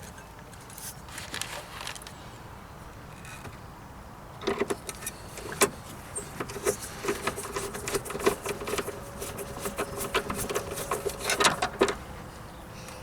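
Irregular clicks, taps and rattles of hard plastic and metal parts being handled as the fuel filter and its holder are refitted. The clicks come thickest in the second half.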